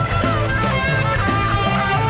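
Background music led by guitar, with steady held notes over a bass line.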